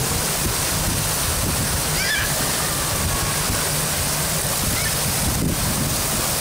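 Steady rush of wave-pool waves washing through shallow water, with faint distant voices of bathers.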